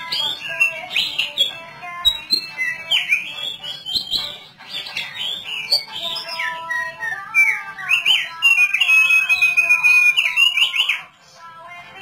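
Caged thick-billed white-eye singing: a fast, varied run of chirps and whistled phrases, with one long held whistle that breaks off sharply about a second before the end.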